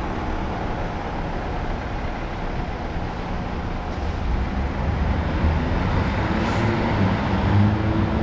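City street traffic: a steady roadway rumble, with a vehicle engine's hum growing louder over the last two seconds.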